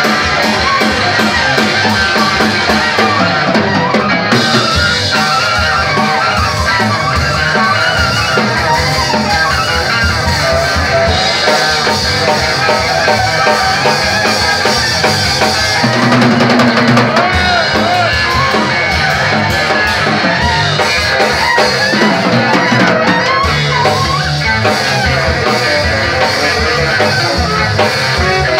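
Live jazz trio playing: tenor saxophone over a drum kit with cymbals, and a plucked long-necked string instrument. The music runs loud and busy, swelling a little past the middle.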